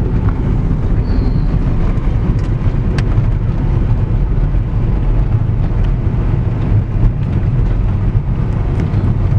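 Steady low rumble of a car driving, engine and road noise as heard from inside the cabin.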